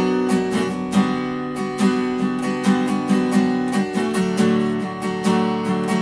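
Background music: an acoustic guitar strummed in a steady rhythm.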